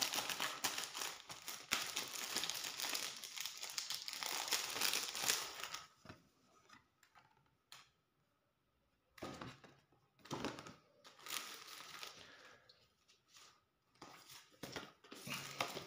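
Clear plastic wrapper crinkling as it is handled and peeled off a comic book: a long stretch of crackling, a pause of about three seconds, then more bursts of crinkling.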